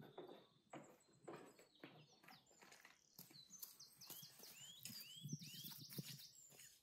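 Faint footsteps of a person walking down a wooden ramp, with small birds chirping and trilling from about halfway through.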